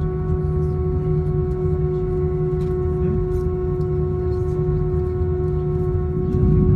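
Airbus A320 jet engines heard from inside the cabin: a steady droning tone over a low rumble, growing louder about six seconds in, with light clicks and rattles.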